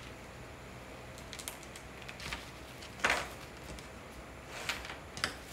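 Hand-handling noises on a workbench: rubber waste-ink tubing and a cloth being moved about, with scattered rustles and soft clicks and one sharper knock or rustle about three seconds in.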